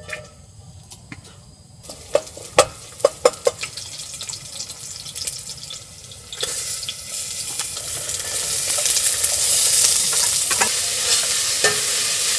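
Minced garlic and sliced onion stir-frying in hot oil in a deep pot: a light sizzle with a few sharp utensil knocks begins about two seconds in, then the sizzle grows much louder from about six seconds as the onion goes in and stays steady.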